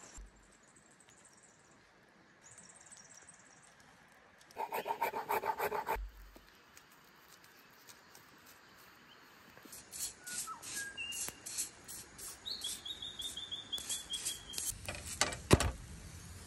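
A bottle being rolled and rubbed back and forth on a wooden board as a makeshift rolling pin to flatten dough, in quick rubbing strokes with clicks. In the second half a bird calls with a short series of descending notes, and one sharp knock comes near the end.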